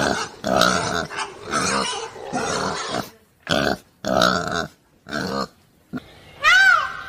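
A pig calling in a run of short, loud grunts, about eight of them with brief pauses between. Near the end comes a single cat meow that rises and falls in pitch.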